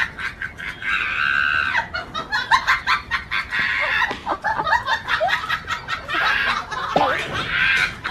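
Hens clucking and squawking repeatedly, some squawks lasting about a second, with scattered clicks and knocks.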